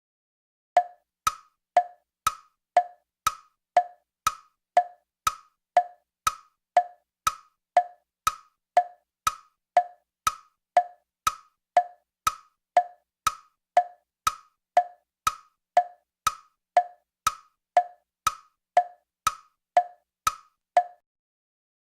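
Comedic tick-tock sound effect: sharp wooden clicks, about two a second, alternating between a lower and a higher pitch in a steady rhythm, with silence between them, like a wood-block clock tick.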